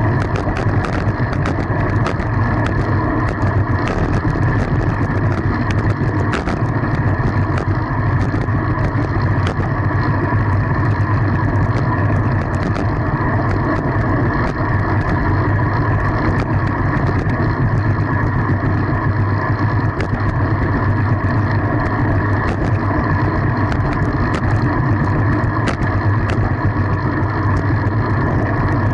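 Steady rush of wind and road rumble on the microphone of a camera riding along on a fixed-gear bicycle, with scattered light clicks.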